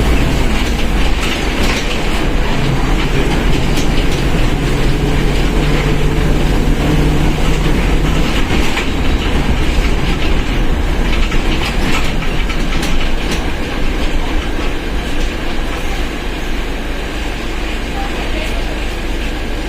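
Mercedes-Benz OF1721 BlueTec 5 bus underway, heard from on board: a steady low engine and drivetrain rumble with scattered rattles and knocks. A held tone sits over the rumble for the first several seconds, then fades, and the sound gets a little quieter near the end.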